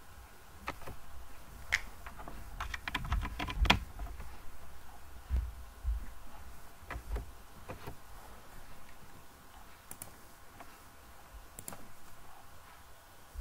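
Computer keyboard keys and mouse buttons clicking in scattered single taps, with a quick flurry of keystrokes about three seconds in.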